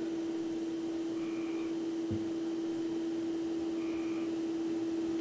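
A steady low hum at one pitch over faint hiss, with two faint brief high tones about two and a half seconds apart and a soft knock about two seconds in.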